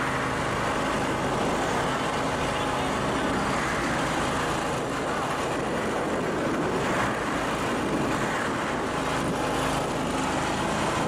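Steady, unbroken noise of road traffic running over a bridge.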